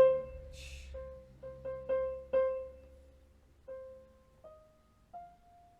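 DEK 610P electronic keyboard sounding through its built-in speakers as one key is struck about seven times at an uneven pace, loud, each note ringing and fading. Near the end two single notes follow, each a step higher in pitch.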